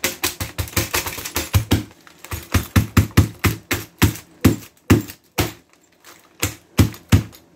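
Small hammer tapping rapidly along a glass T8 LED tube inside a plastic bag, cracking and crunching the glass off the LED strip. It is a quick run of sharp taps, about four a second, with a short pause a little after the middle.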